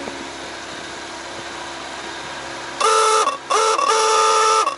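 Boat horn sounding a series of loud, flat-pitched blasts, starting about three seconds in: two short ones, then a longer one, with a fourth starting near the end. A steady boat engine idles underneath.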